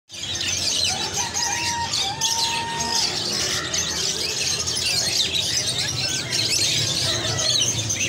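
A dense chorus of many caged birds, parrots among them, chirping and screeching over one another without a break. Two held, whistled notes stand out about one and two seconds in.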